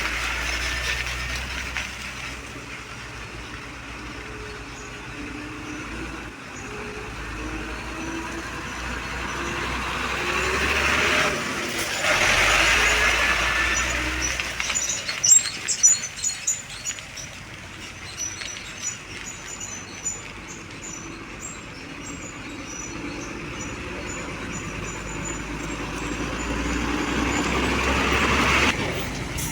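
Truck engine running, swelling and easing off twice, with a cluster of sharp knocks and rattles about halfway through.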